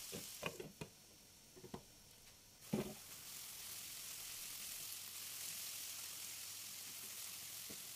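Diced sweet peppers, courgettes, onion and garlic sizzling in olive oil in a frying pan. A few light clicks come in the first seconds. After a knock about three seconds in, the sizzle runs steady.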